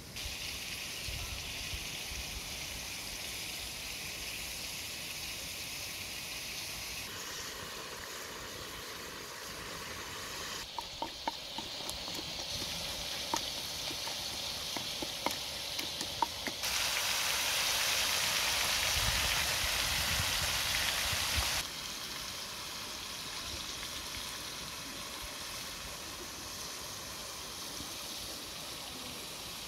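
A wooden pestle knocking a handful of times in a clay mortar, over a steady rushing hiss that grows louder for several seconds after the knocks and then drops back.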